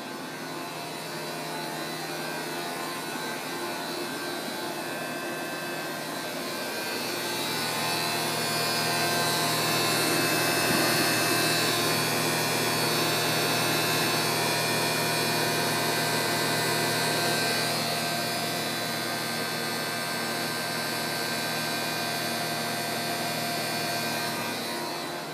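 Lexus IS300h air-conditioning system running with the AC switched on: a steady hum with several held whining tones over a hiss. It swells louder for about ten seconds in the middle. This is the abnormal noise that comes only when the AC is on and stops when it is switched off.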